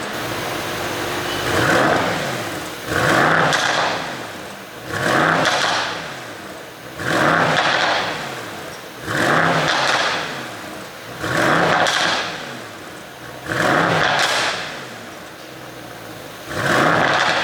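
Mercedes-AMG GT63 S twin-turbo V8 with a pop-and-crackle ECU tune, blipped about eight times, roughly every two seconds. Each rev climbs and falls away, with the exhaust popping and crackling on the overrun as the revs drop.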